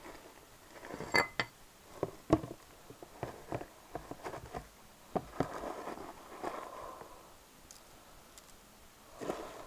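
Bark-chip substrate rustling and clicking as a hand digs through a snake enclosure, with irregular small knocks and a longer scraping rustle in the middle.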